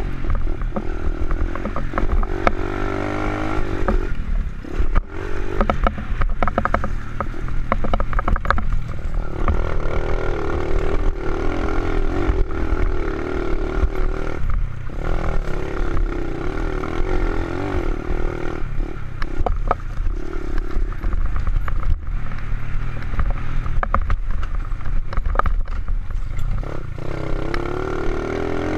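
Honda XR70 pit bike with an 88cc big-bore kit and race cam, its small single-cylinder four-stroke engine revving up and down hard under riding. The throttle is chopped briefly several times, and the bike rattles and knocks over bumps in the dirt.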